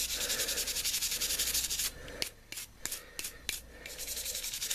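Toothbrush bristles scrubbing a steel knife blade coated with toothpaste, in fast back-and-forth strokes that work at stubborn ground-in spots. About halfway through the scrubbing thins to a few separate strokes, then picks up again near the end.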